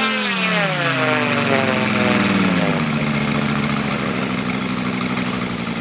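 Engine of a large radio-controlled F4U Corsair model running on the ground, throttled back from high revs: its pitch falls steadily for about three seconds, then settles into a steady idle.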